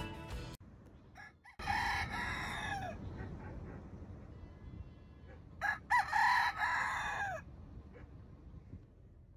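A rooster crowing twice, each crow a long cock-a-doodle-doo that drops in pitch at the end, the second about four seconds after the first.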